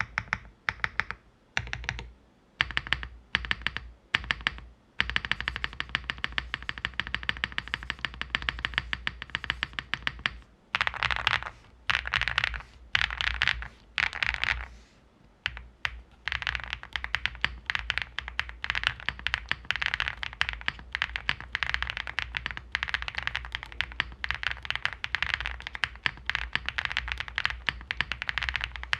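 Keyboard fitted with Cherry-profile PBT dye-sub keycaps being typed on. A few short groups of keystrokes with gaps at first, then fast, continuous typing broken by brief pauses.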